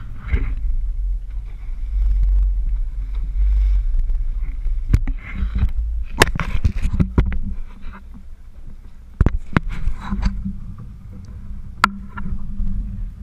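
Steady low rumble of the boat and wind on the microphone, with a hum coming in during the second half. A few sharp knocks and clicks are scattered through it.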